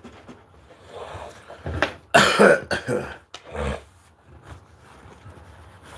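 A man coughing in a short bout about two seconds in, a few harsh coughs with the loudest first, and a smaller cough or throat clearing shortly after.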